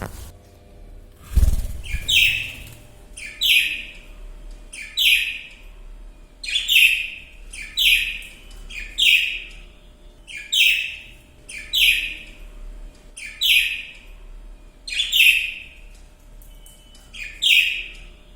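A bird calling over and over: short downward-sweeping calls, about a dozen, one every second and a half or so. A low thud comes about a second and a half in.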